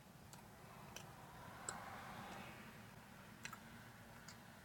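Near silence: the room tone of a parked car's cabin, with a faint low hum and a few faint, irregular clicks.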